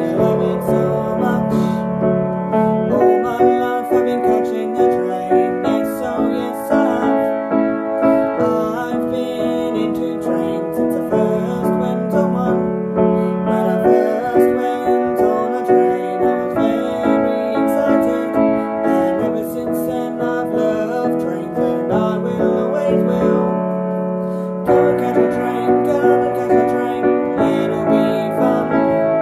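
A song with keyboard accompaniment: sustained piano chords that change every few seconds, with a woman singing over them.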